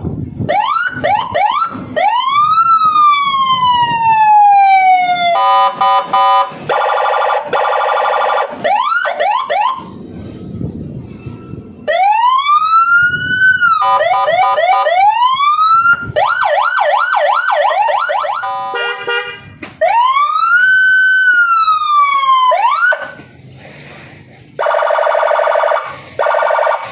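Electronic police-escort (patwal) siren cycling through its tones, with short breaks between them. It goes through quick yelps, long wails that rise and fall, a fast warble, and a buzzing horn blast that sounds twice, the second near the end.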